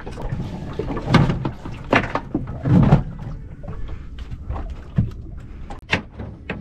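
Knocks and thuds from handling the hinged wooden lid of a boat's stern cabinet as it is lifted open. The heaviest thuds come about one and three seconds in, and a sharp knock about six seconds in.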